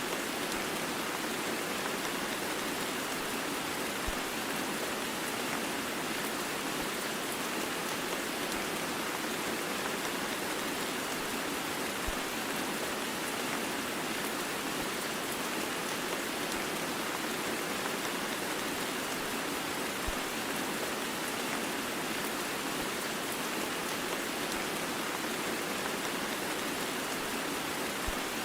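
Heavy rain mixed with white noise: a dense, even hiss that holds steady. A faint low knock comes about every eight seconds.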